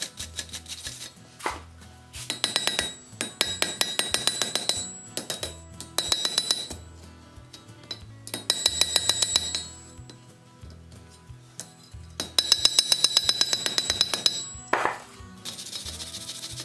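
Hand hammer striking red-hot iron on an anvil in several quick runs of blows, the anvil ringing with each strike, forging a seat iron. Near the end a wire brush scrubs scale off the hot iron with a hissing scrape.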